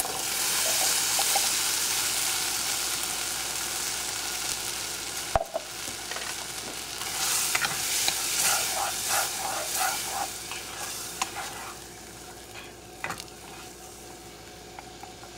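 Canned pinto beans going into a hot saucepan of sofrito and tomato sauce, sizzling loudly, then stirred with a spoon: repeated scraping strokes over a sizzle that dies down toward the end.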